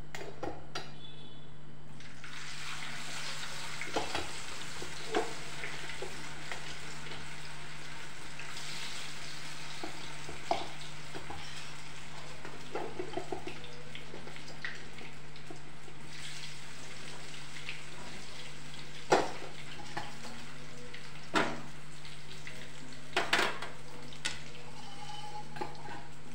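Potato fries deep-frying in hot oil in an iron kadhai: a steady sizzle, with a spoon clinking now and then against steel vessels, the loudest clinks in the last third.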